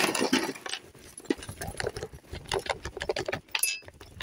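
A bag of metal-detecting finds being handled: rustling at first, then irregular small clicks and knocks.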